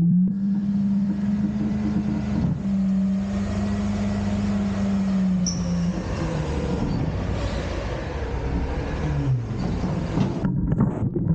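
Front-load garbage truck's engine revved to drive the hydraulics while the lift arms lower an emptied dumpster. A steady whine dips briefly partway through and glides down near the end as the engine drops back.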